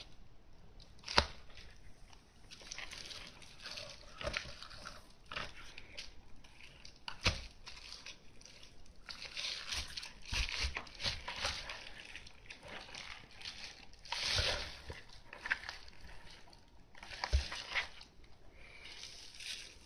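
Leather camera case being handled: leather rubbing and creaking, with scattered knocks, the sharpest about a second in.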